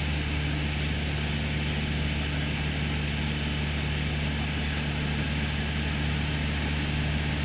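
Single-engine light aircraft's engine and propeller droning steadily in cruise flight, heard from inside the cockpit.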